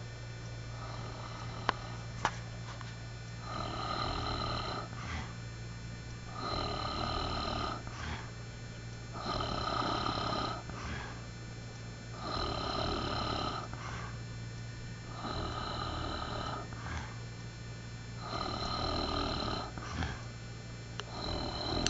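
A man snoring: one long, rasping snore about every three seconds, six or seven in a row, over a steady low hum. His snoring is likened to a pig's.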